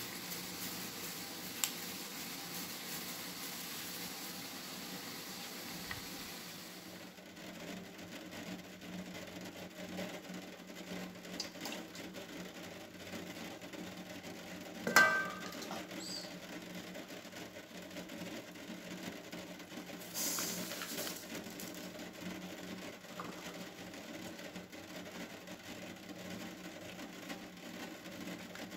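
Faint kitchen handling sounds over a low steady hum: a single sharp knock with a brief metallic ring from a stainless steel mixing bowl about halfway through, and a short pouring hiss later, like sugar poured into the bowl.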